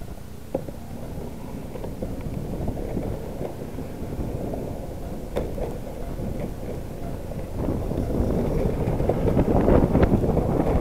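Wind buffeting the microphone of a handlebar-mounted camera on a moving bicycle, a low rumble that grows clearly louder about three-quarters of the way through as the bike picks up speed. A couple of light clicks are heard earlier.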